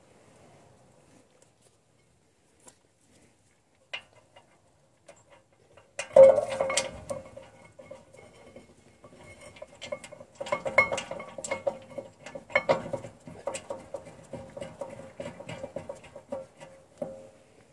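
Hyundai i20 rear brake caliper bracket and pads clinking and scraping against the brake disc as they are fitted by hand. A few faint clicks come first, then from about six seconds in a busy run of metallic knocks and rattles.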